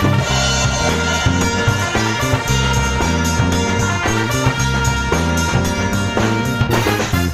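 Jazz-fusion instrumental: electronic keyboard, drum kit and bass guitar playing together, with the bass notes stepping through a riff under the keyboard while the drums keep time.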